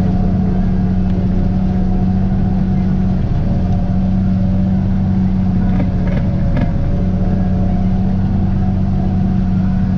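Tractor engine pulling a pull-type forage harvester that is chopping standing corn, heard from inside the tractor cab: a steady low drone under load. A few short sharp ticks come about six seconds in.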